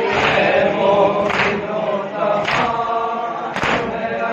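A group of men chanting a noha in unison, kept in time by loud chest-beating (matam), one sharp slap about every second.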